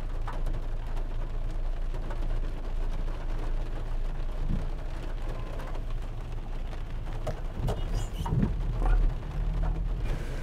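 Heavy rain falling, with scattered raindrop ticks over a steady low hum.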